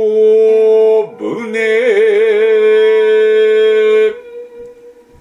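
A singer chanting in kayō-ginei (shigin) style holds two long notes of the closing line, the second with a slow wavering vibrato; the voice stops about four seconds in and a faint reverberant tail fades out.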